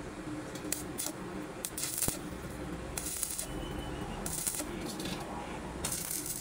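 Arc welding on a steel cylinder's seam: the arc crackles and hisses in about six short bursts, the longest about half a second, the last near the end, as tack welds are laid along the second edge.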